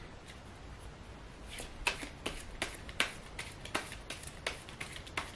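A deck of tarot cards being shuffled by hand: after a quiet start, a run of crisp card slaps and clicks begins about a second and a half in, two to three a second.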